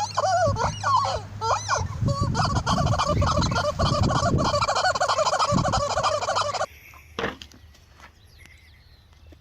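Turkeys gobbling: a dense chorus of rapid, overlapping gobbles that cuts off abruptly about two-thirds of the way through.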